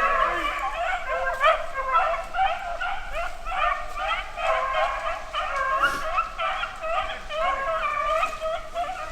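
A pack of rabbit hounds baying together in a steady, overlapping chorus while running a rabbit's trail.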